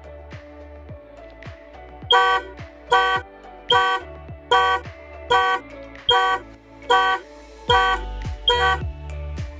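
Toyota Vios car horn sounding in short, evenly spaced blasts, nine of them about 0.8 s apart starting about two seconds in: the car alarm going off because the car was unlocked improperly. Background music plays underneath.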